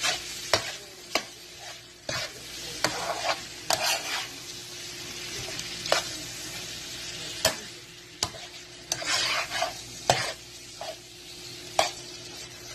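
A utensil stirring smoked sausage and broccoli in a frying pan, knocking and scraping against the pan at irregular intervals over a steady sizzle.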